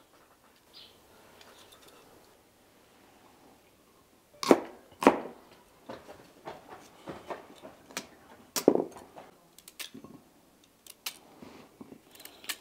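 Kitchen knife cutting vegetables (tomato and small pumpkin) by hand: nearly quiet at first. About four and a half seconds in come a few sharp knocks, a pair and then another near nine seconds, with lighter clicks and scrapes after.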